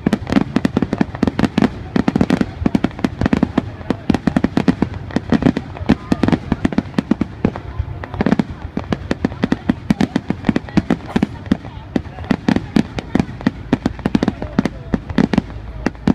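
Aerial fireworks shells bursting overhead in a dense, continuous barrage of bangs and crackles, several reports a second with deep booms beneath.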